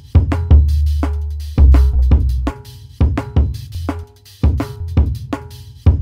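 Electronic music track: punchy drum hits over long, deep bass notes that start and stop in a rhythm, with short pitched notes between the beats.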